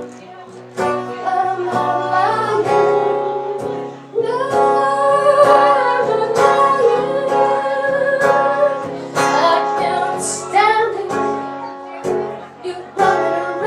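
A song with a woman singing over plucked acoustic guitar, her voice holding long notes with vibrato in the middle stretch.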